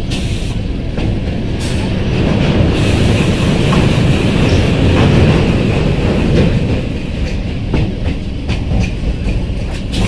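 Rumble and rattle of a moving suburban electric train heard from inside the coach, with a few sharp clanks from the wheels and couplings. It grows louder for a few seconds in the middle, then eases back.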